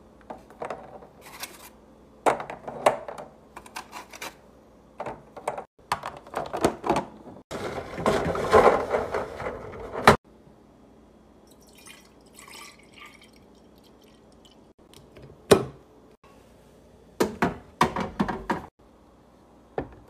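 Eggs and clear plastic fridge containers being handled: irregular light clicks and taps as eggs are set into a plastic egg holder and the bins are put in place. A denser stretch of handling noise comes in about eight seconds in and stops suddenly, and another cluster of taps comes near the end.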